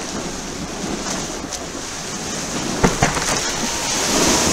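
Ocean surf and wind rushing over a board-mounted camera as the surfboard rides a breaking wave, growing louder near the end as the white water builds. Two sharp knocks come about three seconds in.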